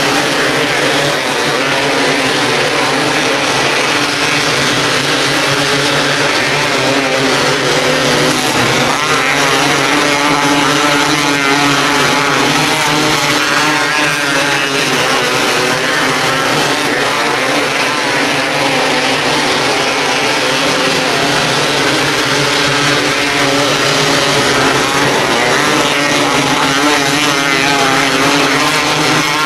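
Winged 270 micro sprint cars racing on a dirt oval, their single-cylinder motorcycle-type engines running hard and loud, the pitch rising and falling as they power down the straights and lift through the turns.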